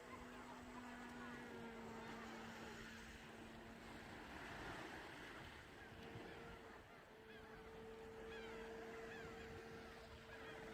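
Faint, steady drone of a distant electric RC airplane motor and propeller, its pitch shifting slightly a few times with the throttle, over wind rumble on the microphone.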